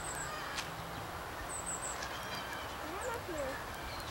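Faint scattered calls from Pyncheon chickens, with a few short high chirps near the start and about a second and a half in.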